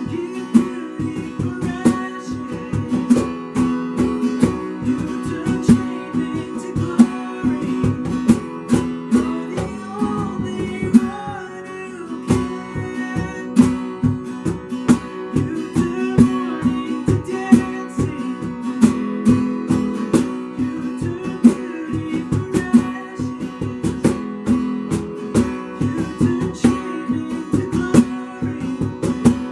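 Worship music led by an acoustic guitar strummed in a steady, even rhythm over sustained chords, with a brief lull about eleven seconds in.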